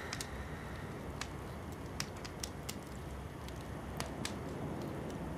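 Steady low background rumble, with scattered faint crackles and clicks at irregular moments.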